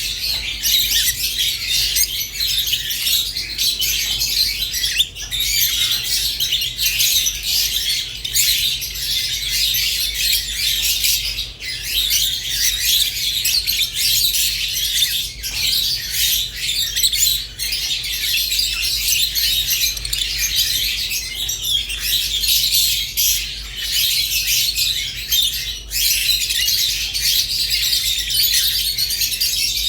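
Rosy-faced and Fischer's lovebirds chirping and squawking continuously, a dense overlapping chatter of high calls. A steady low hum runs underneath.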